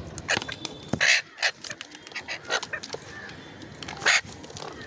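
Ringneck parrot giving a quick run of short, sharp, high squawks, the loudest about a second in and again near the end.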